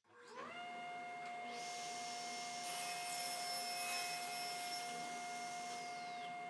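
Small vacuum-type shop dust collector motor switching on and spinning up within half a second, then running with a steady whine. From about a second and a half in, a louder rush of air is added, and a high tone drops away near the end.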